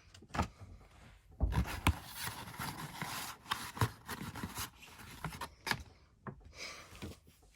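Cardboard and paper album packaging being handled: rubbing, sliding and rustling, with several sharp knocks and taps.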